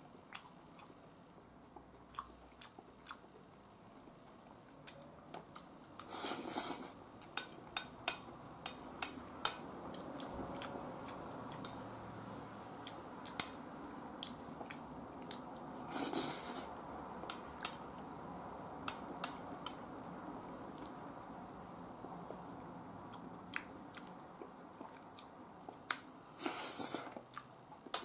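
A person eating curry rice from a bowl: chewing, with a metal spoon clicking against the bowl again and again and scraping across it three times, roughly ten seconds apart.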